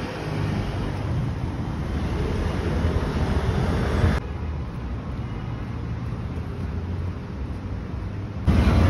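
Street traffic noise: a steady rumble of passing vehicles. The sound changes abruptly about four seconds in and again near the end, where the recording is cut.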